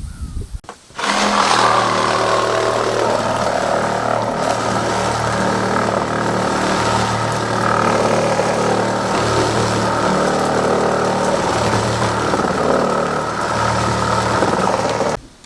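Reciprocating saw running steadily as it cuts through the RV's body panel. It starts about a second in and stops abruptly just before the end.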